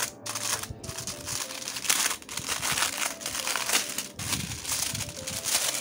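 Clear plastic wrapping being pulled and peeled off a photobook, crinkling and crackling in a rapid, irregular run.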